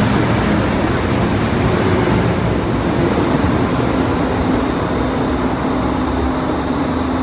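Hong Kong MTR M-Train electric metro train running alongside an underground platform behind platform screen doors: a steady rumble of wheels on rail with a low motor hum, easing off slightly toward the end.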